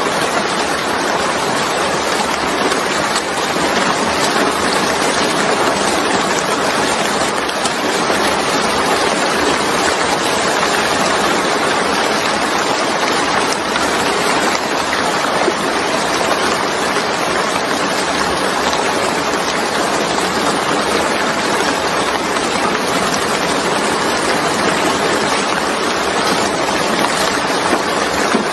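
Steady rain falling on a wet surface, an even hiss of countless drops with no let-up.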